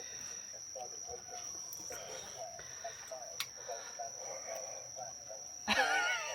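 Crickets or other night insects chirring steadily in one high, unbroken tone. A brief, louder wavering sound comes near the end.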